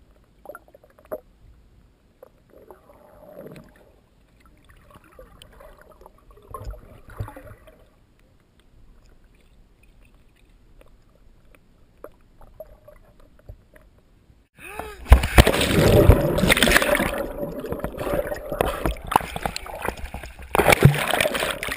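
Faint, muffled underwater sound with a few small clicks, picked up by a submerged action camera. About two-thirds of the way in, loud water splashing and sloshing takes over suddenly as the camera breaks the surface beside a boat's hull.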